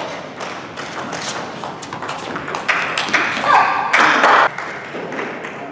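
Table tennis balls ticking and pinging on tables and bats in a large hall, with voices swelling for about a second a little after three seconds in.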